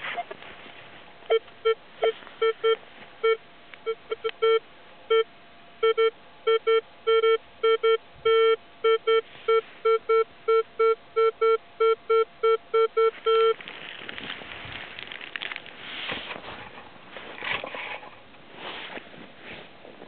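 Minelab X-Terra 705 metal detector beeping: many short beeps of one pitch at an uneven pace, a few held longer, for about twelve seconds, then stopping. Rustling and handling noise follow near the end.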